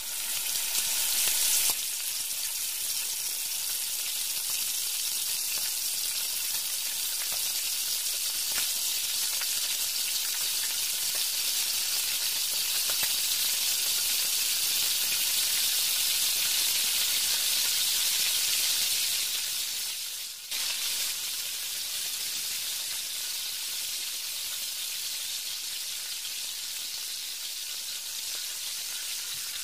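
Gram-flour-battered cauliflower pakoras deep-frying in hot oil in a pan: a steady sizzle, loudest in the first couple of seconds as the battered pieces go in, with a brief break about twenty seconds in.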